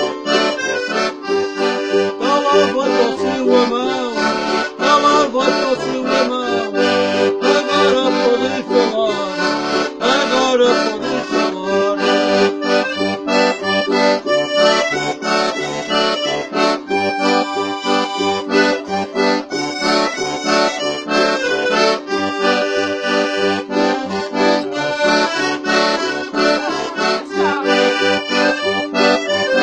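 Button accordion playing a traditional tune: a melody over bass notes on a steady beat of about two a second.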